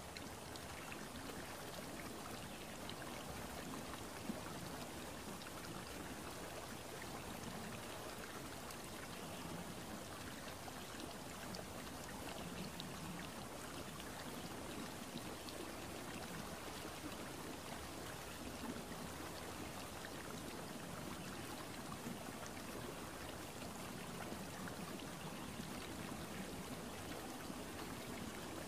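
A steady, even hiss that sounds like running water or rain, with a single sharp tick about four seconds in.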